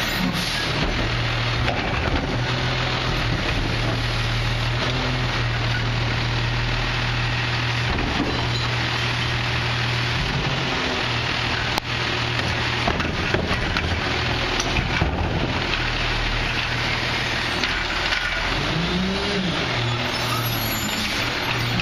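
Diesel engine of a Peterbilt 320 garbage truck running with a steady hum while the McNeilus Autoreach hydraulic arm grabs a curbside cart, lifts it and dumps it into the hopper, with clatter and knocks from the cart and load. The engine hum eases about halfway through, and a short rising-then-falling whine comes near the end.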